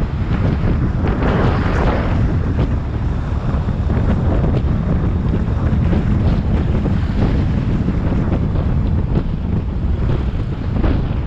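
Wind rushing and buffeting over the microphone of a moving motorcycle, with the Honda XRV 750's V-twin engine running beneath it.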